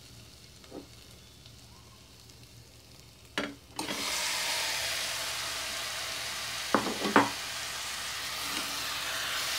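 Marinated beef tipped into hot oil in a steel pressure cooker, starting to sizzle suddenly about four seconds in and sizzling steadily after that. Two sharp knocks come in the second half.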